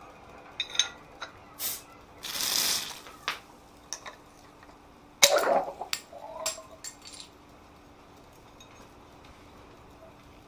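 A hand-forged steel church key bottle opener prying the crown cap off a glass bottle of carbonated drink. Metal clicks against the cap come first, then a loud hiss of escaping gas. About five seconds in there is a sharp pop and clinks as the cap comes free and the drink foams over.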